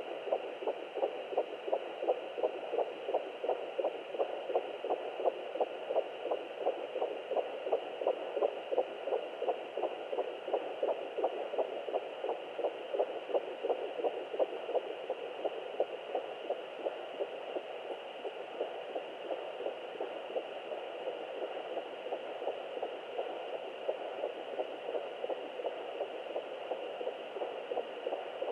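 Fetal heartbeat at 11 weeks picked up by a handheld Sonoline fetal Doppler and played through its speaker: fast, even pulses over a steady hiss.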